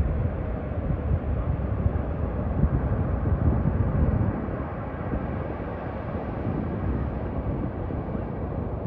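Ocean surf breaking on a sandy beach: a steady rush with a heavy low rumble, a little louder in the first four seconds.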